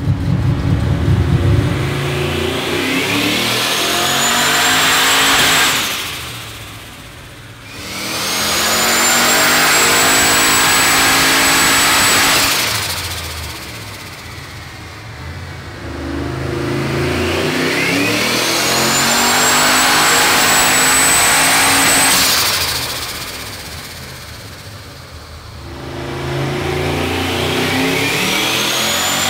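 Turbocharged 403 cubic-inch stroker LS V8 (cast iron LQ9 block, 88 mm turbo) doing repeated full-throttle pulls on a chassis dyno. Each pull rises in pitch over about four to five seconds, with a high whine climbing alongside, then drops away when the throttle closes. There are three full pulls, and a fourth begins near the end.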